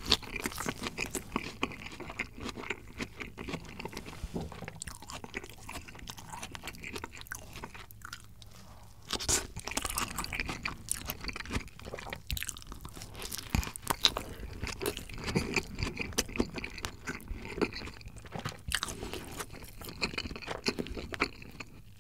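Close-miked chewing of a Lotteria Hanwoo beef burger, a run of wet mouth sounds with crisp crunches.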